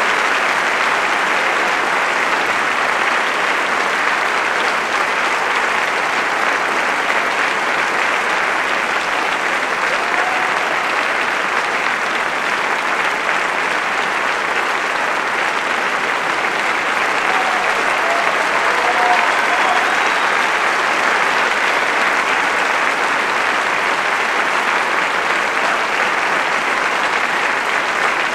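Theatre audience applauding steadily, a long unbroken round of clapping at the dancer's curtain call.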